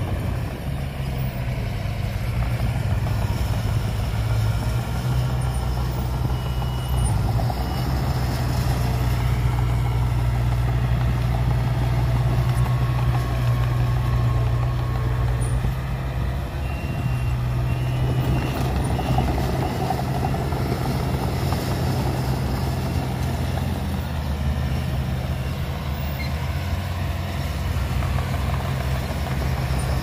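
Diesel engines of small Komatsu D20 crawler bulldozers running steadily under load as they push dirt.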